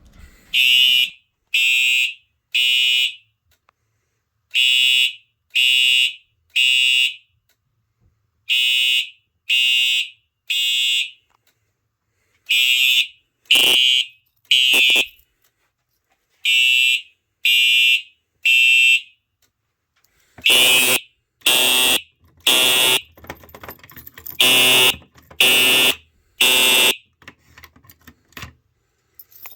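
Simplex TrueAlert horn/strobe (4903-9429) sounding its horn in the temporal-3 evacuation pattern, set off by a manual pull station. It gives seven sets of three short, loud, high blasts, each set followed by a pause, and the horn stops a couple of seconds before the end.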